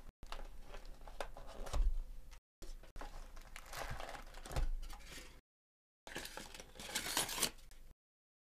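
A cardboard hobby box of 2022 Topps Chrome baseball cards being opened by hand. Its flaps scrape and tear, with a couple of dull knocks. Near the end the card pack wrappers crinkle as they are handled.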